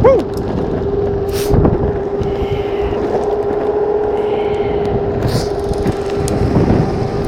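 Electric longboard running at speed, its motor giving a steady whine of constant pitch over the rolling noise of the wheels on asphalt and wind on the microphone.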